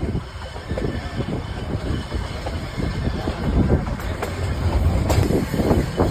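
Nilgiri Mountain Railway passenger train running on the track: a steady low rumble of the carriages with a stream of knocks, and two sharp clicks about four and five seconds in.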